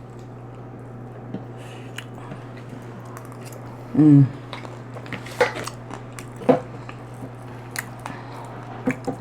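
Close-miked eating: scattered bites, mouth smacks and chewing clicks, with a brief voiced sound about four seconds in. A steady low hum runs underneath.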